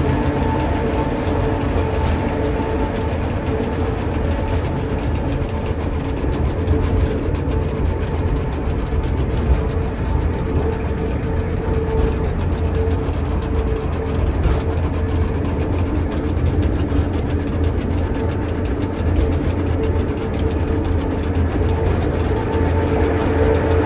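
Electric rack railcar of the Pilatus cogwheel railway running on its steep toothed track, heard from inside the car: a steady low rumble with a constant whine from the drive.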